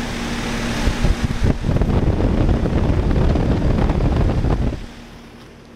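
1992 Rheem Classic X heat pump running in heat mode, its Copeland reciprocating compressor and outdoor fan giving a steady hum. From about a second and a half in until near the end, a loud rush of wind buffets the microphone, then drops away suddenly, leaving the quieter hum.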